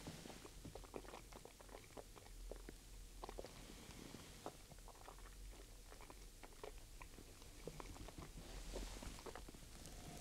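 Faint wet mouth sounds: scattered lip smacks and tongue clicks as a sip of whiskey is worked around the mouth, with a soft breath near the end.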